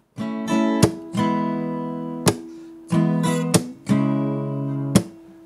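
Acoustic guitar music: a series of strummed chords, each left to ring and fade before the next strum.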